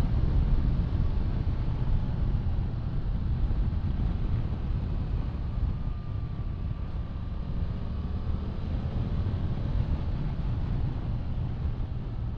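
Onboard riding sound of a Yamaha Tracer 700: its parallel-twin engine's steady low drone mixed with wind rushing over the microphone.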